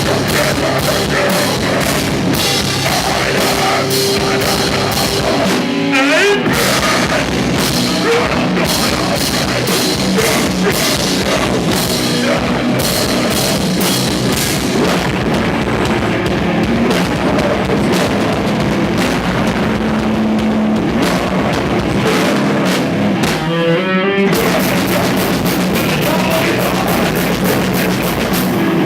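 A live deathcore band playing loud, with fast, dense drumming under heavy distorted guitars. About five seconds before the end the band briefly stops, with a short wavering guitar note, then crashes back in.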